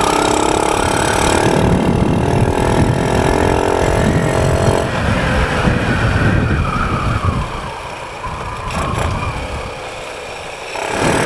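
Motorcycle engine pulling in gear, its pitch slowly rising for about the first five seconds, then easing off and quieter as the bike slows. Wind rumbles heavily on the rider-mounted microphone throughout.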